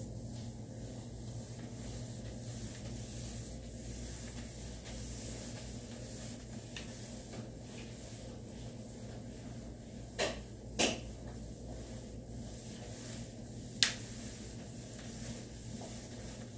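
Steady low hum of an office room, broken by a few sharp knocks: two close together about ten seconds in, and a single louder one about fourteen seconds in.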